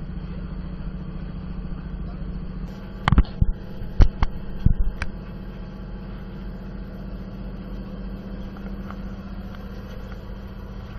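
Fishing boat's engine running steadily with a low drone while under way. A few sharp knocks come about three to five seconds in.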